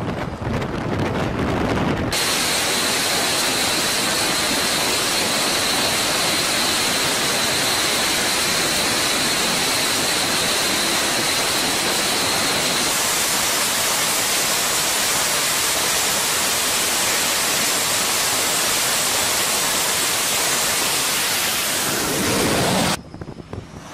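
F/A-18 Super Hornet's twin jet engines running: a steady, loud rush of noise with a high whine in it, cutting in suddenly about two seconds in. About halfway through the whine jumps higher, and the noise cuts off abruptly near the end.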